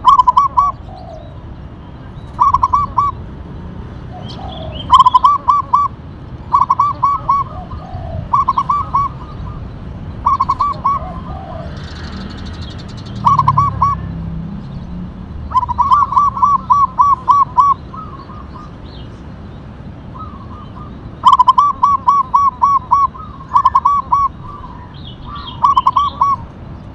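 Zebra dove (perkutut) singing: repeated bursts of rapid, evenly spaced cooing notes, a new burst every couple of seconds, one burst running on longer about two-thirds of the way through. A low rumble sounds in the background a little before halfway.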